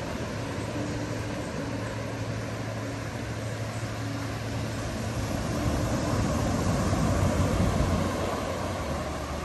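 Ocean surf washing on the beach, with wind rumbling on the phone's microphone; it grows louder for a couple of seconds past the middle.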